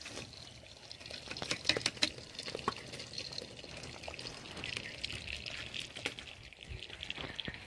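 Pot of rice boiling in its starchy water, stirred with a metal ladle that clinks and scrapes against the metal pot many times.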